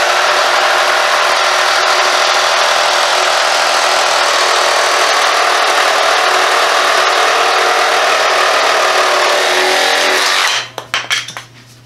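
Hercules 20V brushless cordless reciprocating saw with a 9-inch wood blade cutting through a stack of pressure-treated lumber (a 2x4 on a 4x4) under heavy pressure, the motor running at a steady pitch throughout the cut. It stops about ten and a half seconds in as the blade comes through the wood.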